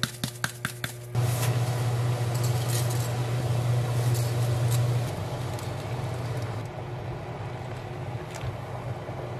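Water at a rolling boil in a stainless steel pot on an induction hob, over the hob's steady low hum. A quick run of clicks in the first second comes from a salt grinder twisted over the pot, and the boiling noise eases a little about halfway through, as the spaghetti goes in.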